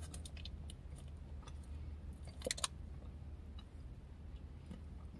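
A person chewing a chocolate-and-peanut candy bar: faint, scattered crunchy clicks from the nuts, a couple a little louder about halfway through, over a steady low hum.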